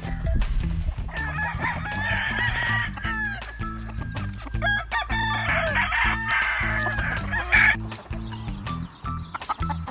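Gamefowl roosters crowing, two long crows starting about a second and about five and a half seconds in, over background music with a steady bass line.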